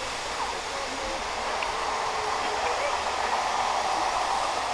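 Steady hiss of steam from a Bagnall saddle tank steam locomotive, growing slightly louder, with a few faint bird calls.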